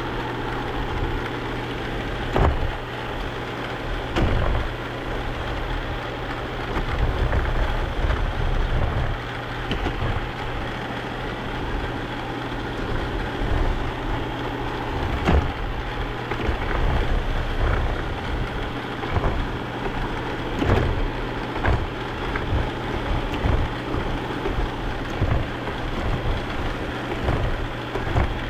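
Robot vacuum running, heard up close from a camera mounted on it: a steady motor and brush whir with a low hum, broken by a few sharp knocks, the loudest about two, four, fifteen and twenty-one seconds in.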